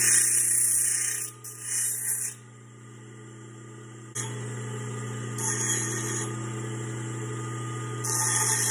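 Bench grinder motor humming steadily while a stainless steel blank is pressed against the wheel in short spells, each a hissing grind of metal on the wheel. There are two spells near the start, a short one midway and another near the end, as the edge is ground straight.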